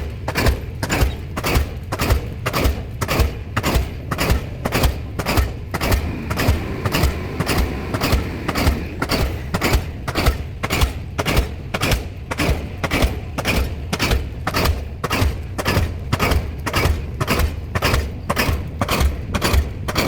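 Diesel pile hammer pounding a pile in a steady, even run of heavy strikes, about two a second. The pile is about five metres down and driving hard into a stiff rock-like stratum.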